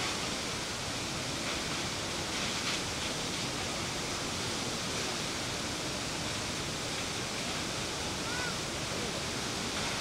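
Steady rushing noise of a tall plunge waterfall falling into its pool.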